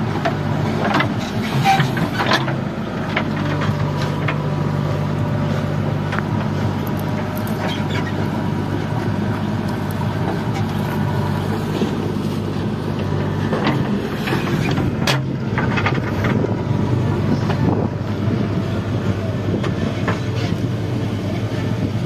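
JCB 3DX backhoe loader's diesel engine running steadily as it digs and dumps soil into a tractor trolley, with sharp clanks and knocks of the steel bucket and of soil and stones dropping into the trolley, the strongest about two seconds in and again about fifteen seconds in.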